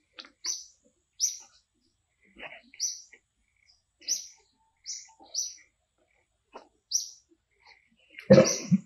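A bird giving short, high chirps over and over, about one a second. Near the end a louder, lower, rough sound breaks in for about half a second.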